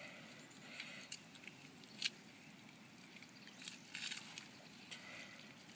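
Faint wet handling sounds of a trout being gutted by hand: soft clicks and squishes as the gills and innards are pulled out, with one sharper click about two seconds in and a few more around four seconds.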